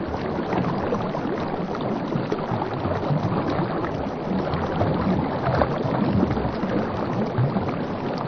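River water lapping and splashing close against the side of a coracle: a steady rushing wash with small scattered splashes.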